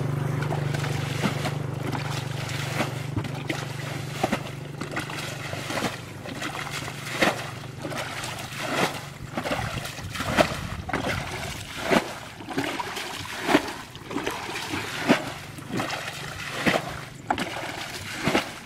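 Water being scooped and thrown out of a shallow muddy ditch, a splash about every second and a half. A low steady hum, loudest at the start, fades away over the first few seconds.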